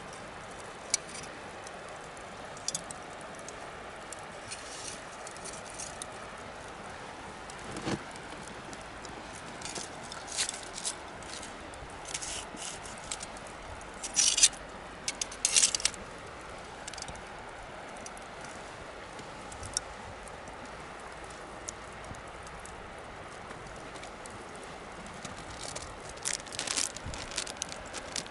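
Wood bonfire crackling: scattered sharp pops over a steady background hiss, with denser clusters of popping about halfway through and again near the end.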